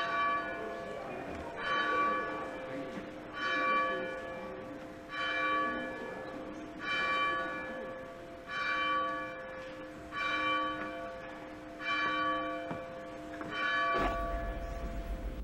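A single church bell tolling slowly and evenly, about nine strokes roughly a second and a half apart, each one ringing out and fading before the next. The tolling stops shortly before the end, giving way to a low hum.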